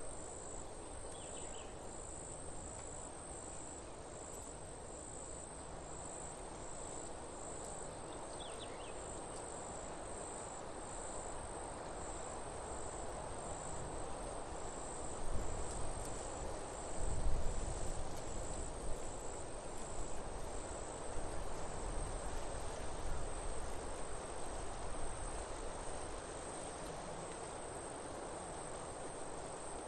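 A steady, high-pitched insect trill, pulsing evenly several times a second, over an even background hiss, with a few low rumbles about halfway through.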